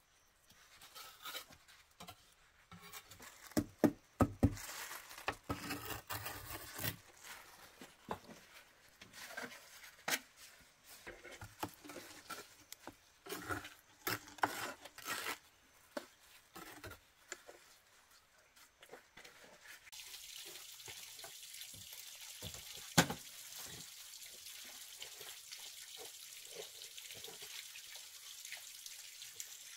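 Scattered knocks and clatters. About twenty seconds in, a steady rush of running water starts, with one sharp knock a few seconds later.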